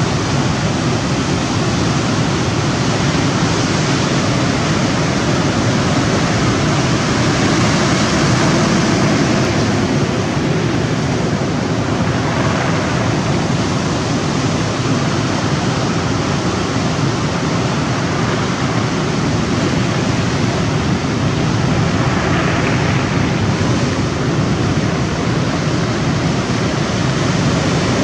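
Steady rushing noise of the sea and wind, swelling gently now and then, with no engine or voices standing out.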